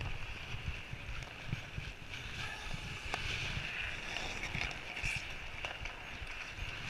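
Ice skates scraping and gliding on a rink, with a low fluttering rumble of wind and handling on a body-worn camera's microphone and a few faint sharp clicks.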